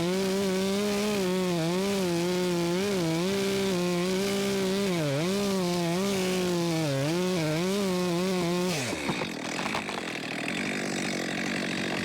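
Chainsaw running at full throttle in a cut, its pitch dipping again and again as it bogs under load. About nine seconds in the throttle is released and the engine winds down quickly, leaving a rougher, noisier sound.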